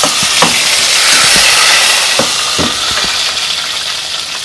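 Beans ladled into hot lard in a pot, sizzling loudly as they hit the fat, swelling about a second in and then slowly dying down, with a few clinks of the metal spoon against the pot.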